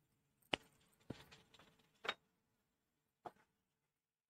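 A spatula knocking against a metal kadai as chicken pieces are stirred: about four short, sharp knocks spread over the few seconds, with a brief scrape after the second.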